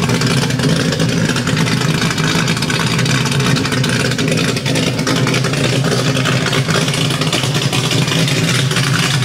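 Pontiac 455 V8 idling steadily through Flowtech headers, an X-pipe and a Pypes Violator exhaust.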